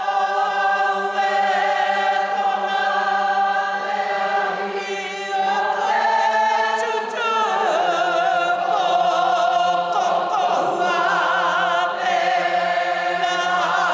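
A group of voices singing a mōteatea, a traditional Māori chant, in unison: long notes held within a narrow range, with a few shifts in pitch partway through.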